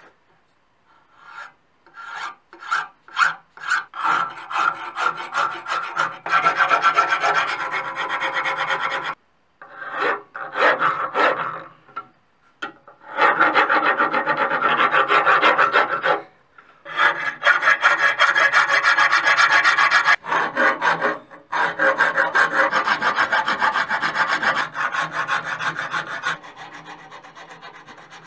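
Hand file rasping across a cast metal housing held in a vise, smoothing down casting marks. It starts with single strokes, then settles into long runs of quick back-and-forth strokes with brief pauses between them.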